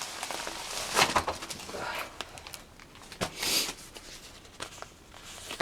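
Packaging being handled as a pull-up bar is pulled out of its box: scattered knocks and clicks with a short scratchy rustle of paper or cardboard about three seconds in.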